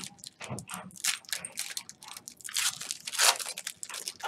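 Trading-card pack being opened and its cards handled: a string of short crinkles and rustles from the foil wrapper and cards, loudest about three seconds in.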